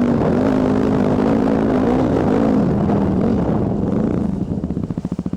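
Single-cylinder dirt bike engine running with its pitch rising and falling. Near the end it drops to low revs, where each firing stroke can be heard as rapid, even thumps.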